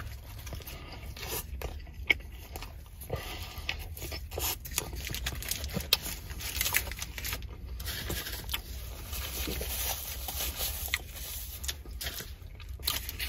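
A man biting into and chewing a soft roast-beef sandwich topped with cheese curds and gravy, close to the microphone: irregular short mouth clicks and chewing sounds throughout. A low steady hum runs underneath.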